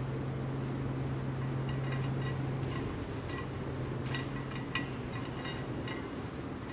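Indoor room tone with a steady low hum, like ventilation, that fades out about three to four seconds in. Over it, from about a second and a half in, come scattered light clicks and ticks.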